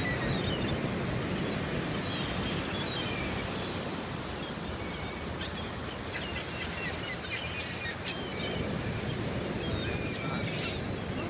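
Steady wash of surf on a beach, with a flock of birds giving many short, high chirping calls, busiest in the middle stretch.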